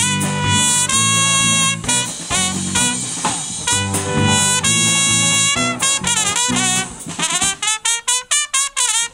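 Trumpet playing a lead line over a live band's electric guitar and drums: long held notes, then a run of short, quick notes near the end as the band's low end briefly drops out.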